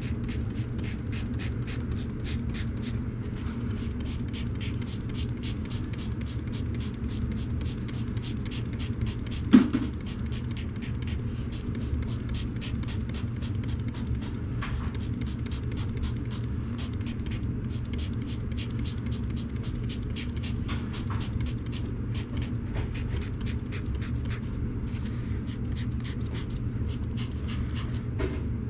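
Trigger spray bottle of carpet spot cleaner spritzing over and over, a few quick sprays a second, over a steady low hum. One sharp knock about ten seconds in.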